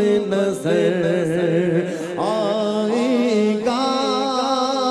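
A man singing an Islamic devotional chant in long, slowly wavering held notes that step from pitch to pitch every second or so.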